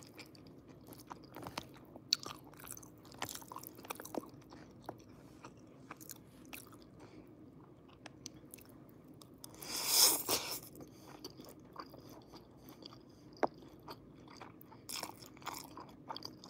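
Close-up mouth sounds of a person eating pasta: wet chewing and lip smacks as small clicks throughout, with a louder slurp of noodles about ten seconds in and more slurping near the end.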